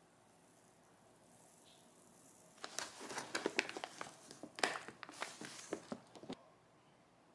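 Rice bag crinkling and rustling as its top is folded over and a plastic bag clip is pushed on to close it: a run of crackles and small clicks lasting about four seconds, starting a couple of seconds in.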